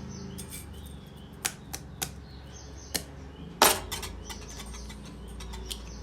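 A few sharp taps and knocks, the loudest about three and a half seconds in: eggs being tapped against a bowl to crack them open.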